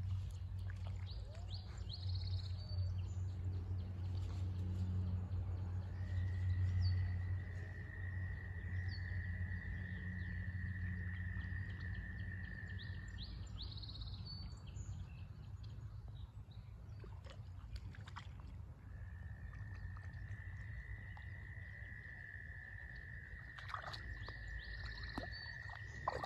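A frog's long steady trill, about seven seconds long, then starting again about two-thirds of the way through, with scattered high bird chirps over a low steady rumble.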